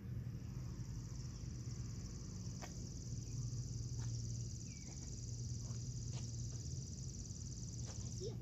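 An insect's steady, high-pitched trill, unbroken until it stops suddenly near the end, over a low steady hum.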